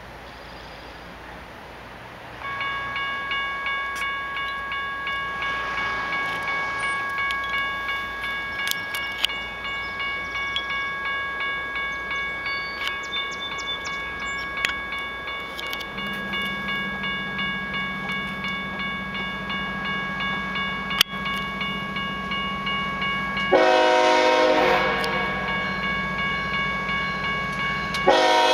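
Grade-crossing warning bell ringing in a fast, steady pulse, starting a couple of seconds in as the crossing activates. Past the halfway point the low drone of an approaching BNSF diesel locomotive joins. Near the end the locomotive's air horn blows a long chord, and a second blast starts right at the end.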